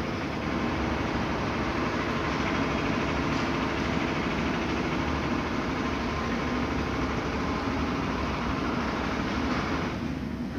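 London Underground S7 Stock electric train pulling out of the platform and running past close by, a steady rumbling noise that eases slightly near the end.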